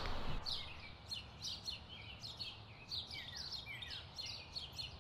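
Small birds chirping: quick, faint, high chirps, most sliding down in pitch, several a second, as a louder noise dies away in the first half second.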